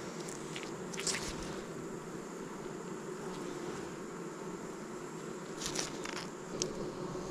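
Honeybees buzzing steadily around an open hive during an inspection, with a few brief clicks or taps from handling the frames, about a second in and again near the end.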